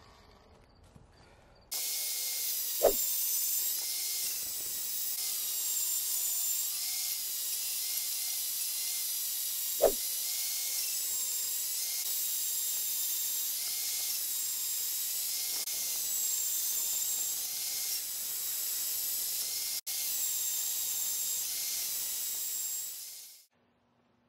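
Portable band saw cutting steel bed-frame angle iron: a steady high-pitched hiss with a faint wavering whine. Two short metallic clinks come about 3 and 10 seconds in.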